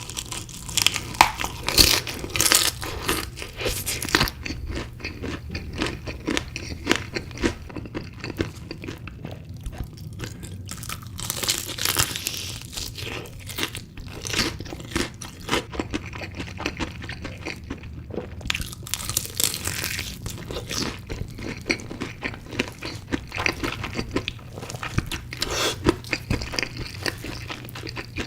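Close-miked crunching and chewing of chicken pieces, with crisp bites and crackles coming in irregular clusters. A faint steady low hum runs underneath.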